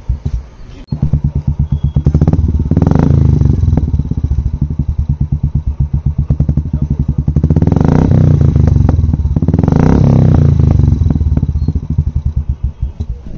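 Royal Enfield Classic 350's single-cylinder engine running with an even pulse through a Shark aftermarket exhaust, revved up three times and settling back each time.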